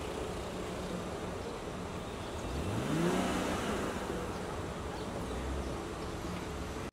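A car engine revving up about two and a half seconds in, its note rising quickly and then fading, over steady street traffic noise.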